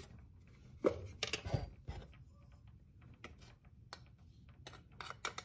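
Light clicks and knocks of kitchen utensils and ingredient containers being handled, a cluster of them about a second in and more near the end.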